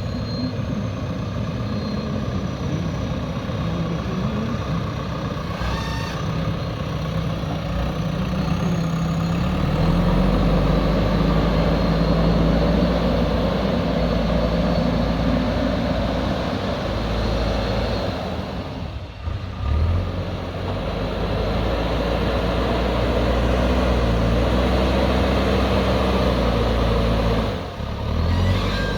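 Heavy diesel earthmoving machinery running steadily, its engine revving up about nine seconds in and holding higher, with two brief drops in level later on.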